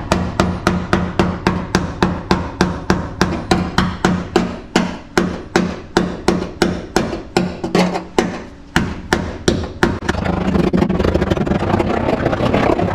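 Pointed pick tool striking a rusty, scaly steel floor pan over and over, about three to four sharp metallic taps a second, probing the rust for weak spots; the metal holds up as still solid. Near the end the taps give way to a steady scraping of the tool over the scale.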